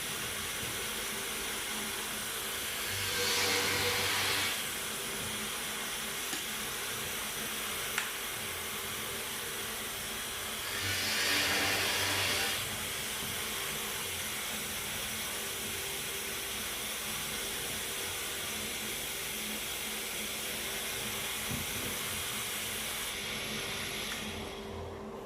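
Workshop vacuum sweeper used as a dust collector on a hinge-boring drill press, running with a steady hiss, swelling louder twice for a couple of seconds each. The hiss dies down near the end.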